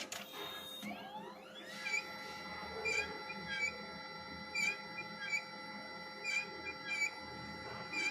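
Fujifilm X-ray film printer's internal drive motor spinning up, with a whine rising in pitch about a second in and then holding steady, while short squeaks and clicks repeat at uneven intervals through the mechanism.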